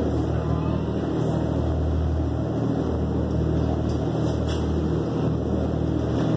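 Whale-watching boat's engine running steadily under way: a low, even drone.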